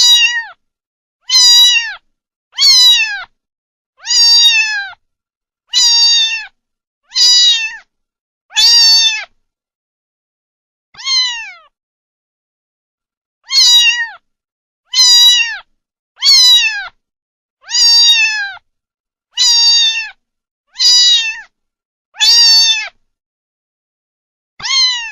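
A domestic cat meowing over and over, one meow about every second and a half with a longer pause midway. Each meow is high-pitched and slides down at the end.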